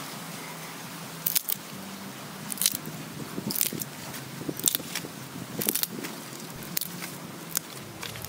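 Handfuls of fresh green leaves rustling and crunching as they are dropped onto meat and beans in a clay pot and tossed with sticks, a crisp rustle about once a second over a low steady hum.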